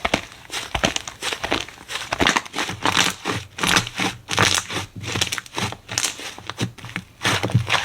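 Slime being squished, pressed and stretched by hand, an irregular run of sticky squelches with many sharp little pops and crackles, several a second.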